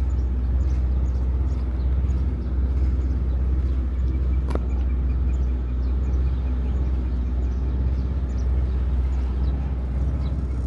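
Motorboat engine running steadily with a deep, even drone. There is a single sharp tap about halfway through.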